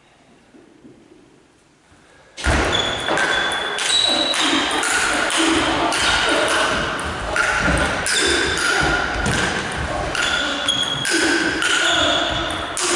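Ping pong rally: the ball knocks and pings off bats and table in a large hall. The first two seconds are fairly quiet, then a little over two seconds in a loud, dense noise starts suddenly and carries on under the ball strikes.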